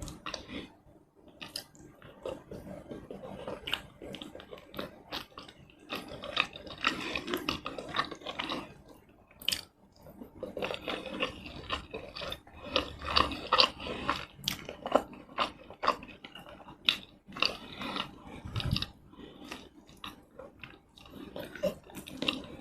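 Close-miked chewing and wet mouth sounds of someone eating tomato rice and chicken in red sauce: many small sharp clicks and smacks, with irregular stretches of louder chewing.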